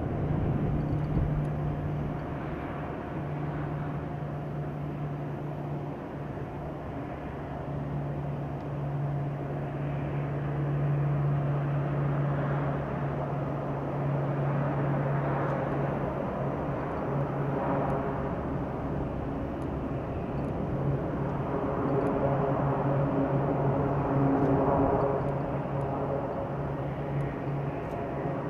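E-2D Advanced Hawkeye's twin Allison T56 turboprop engines and propellers droning steadily as the aircraft comes in to land and rolls out on the runway, louder for a few seconds past the middle.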